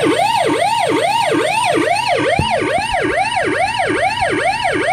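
Fruit machine's electronic alarm sounder wailing in repeated rise-and-fall sweeps, about two to three a second. It is raised by a JPM Impact machine powered up after a board swap, signalling an error that the owner puts down to a missing percentage key.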